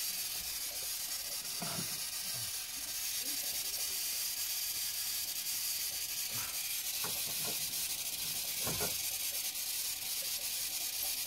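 Steam hissing steadily from a steam radiator's leaking vent valve, with a few faint knocks of handling in between.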